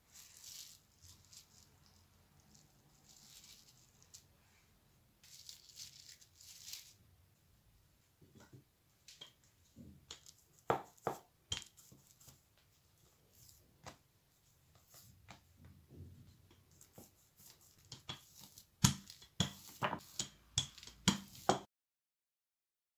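Plastic wrap crinkling as squares of dough are peeled off it, then a wooden rolling pin rolling over dough on a wooden table with repeated sharp knocks, loudest near the middle and in a quick run near the end.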